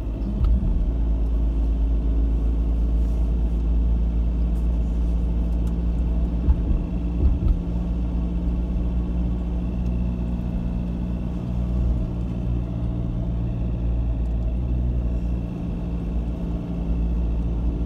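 Steady drone of a car's engine and tyres on the road, heard from inside the car as it drives up a mountain pass.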